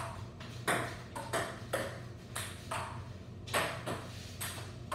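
Table-tennis ball clicking back and forth off paddles and the table in a rally, about two sharp hits a second at an uneven pace.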